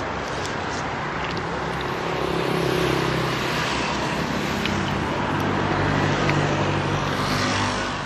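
Road traffic: motor vehicles passing on the street, a noisy rush with a low engine hum that swells about two to three seconds in and again around six to seven seconds in.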